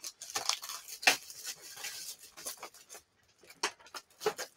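Packaging of a Funko Rewind VHS-style box being opened by hand: crinkling, rustling and handling noises in short irregular bursts, pausing briefly about three seconds in, then a few light clicks.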